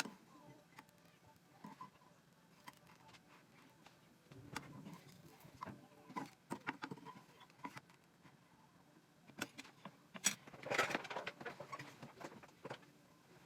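Quiet kitchen handling sounds: scattered light taps and clicks of utensils, with a soft rustle about four seconds in and a busier cluster of taps about ten seconds in.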